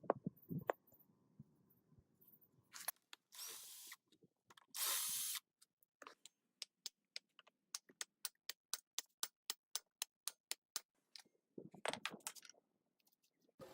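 Workshop tool sounds on a bare engine block: two short hissing bursts, then a steady run of sharp clicks at about three or four a second, and a brief burst of noise near the end.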